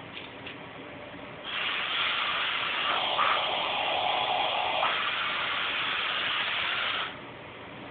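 Compressed air hissing from a hand-held paint-booth air gun, switched on sharply about a second and a half in and shut off about five and a half seconds later, with a lower rush joining for a couple of seconds midway.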